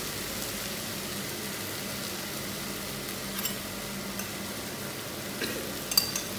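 Steady sizzle of chicken frying in a large aluminium pot over the flame. Near the end come a few light taps as the last of the ground spice mix is knocked off the plate into the pot.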